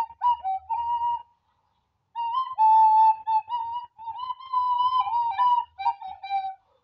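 Plastic recorder playing a melody of short, mostly separate notes. About a second in it stops for nearly a second, then the tune carries on.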